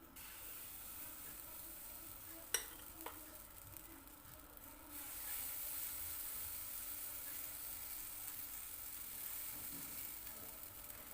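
Pancake batter frying in a hot pan: a steady sizzle that gets louder about five seconds in, with two sharp clicks a moment apart near the middle.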